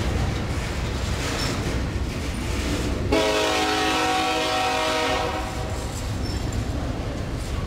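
Double-stack intermodal freight train rolling past, its well cars rumbling steadily on the rails. About three seconds in, a locomotive air horn sounds one chord for about two seconds.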